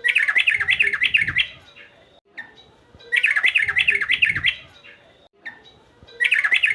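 Male yellow-vented bulbul (trucukan) singing: three short phrases of about five quick up-and-down chirping notes each, repeated about every three seconds.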